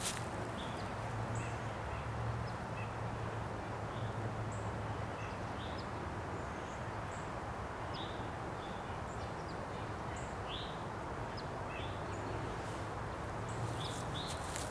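Small birds chirping in short scattered calls over a steady outdoor background with a low hum. Near the end, footsteps crunch on dry leaves.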